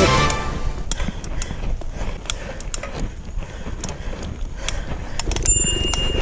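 Bicycle ticking and clicking irregularly over a low rumble of wind on the microphone, ridden up a very steep climb. About five seconds in, a steady hum with a high, even whine comes in.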